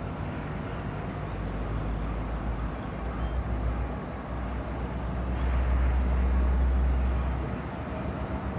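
Freight train passing, with the steady low drone of its diesel locomotives over the rumble of the rolling cars. The drone swells for a couple of seconds past the middle as a mid-train locomotive comes along.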